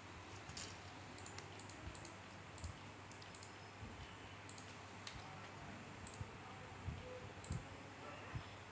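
Faint, scattered clicks of computer keyboard keys being pressed one at a time as a word is typed and corrected, about a dozen irregular clicks.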